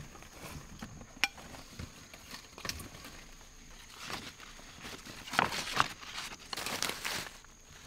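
Rustling and crackling, as of dry leaves and twigs, with scattered sharp clicks; it gets busier and louder about five to seven seconds in. A faint steady high whine runs underneath.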